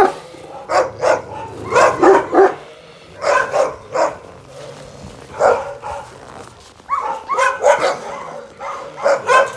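Repeated loud barking from a big canine, single barks and short runs of two or three coming every second or two.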